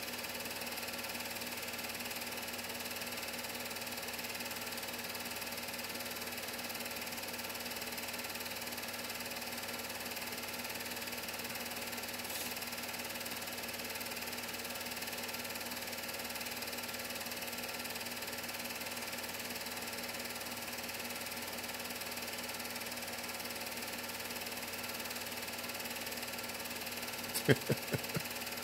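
Home movie projector running: a steady mechanical whir with a constant hum of several tones. A few sharp clicks come near the end.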